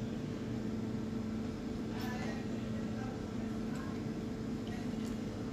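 A steady low electrical or machine hum with a faint ticking and tapping about two, four and five seconds in.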